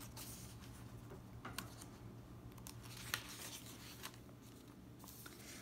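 Faint rustling of paper journal pages being handled and turned, with a few soft ticks.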